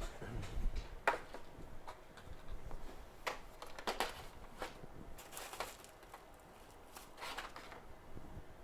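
Rustling and light clicks from spare-part packets being handled and sorted through, in a few short scattered bursts.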